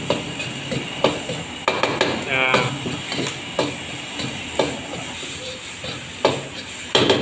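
Metal spatula stirring and scraping chopped egg around a wok, knocking against the pan at irregular intervals about once a second, over the steady sizzle of the egg frying in oil.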